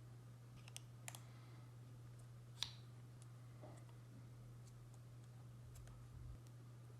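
Scattered small, sharp plastic clicks of LEGO Technic pieces being snapped and pressed together, the loudest about two and a half seconds in, over a faint steady low hum.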